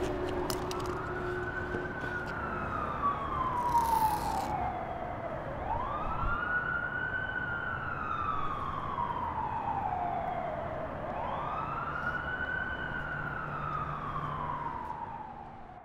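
Emergency-vehicle siren wailing in three slow cycles, each rising quickly and then falling slowly, fading away near the end.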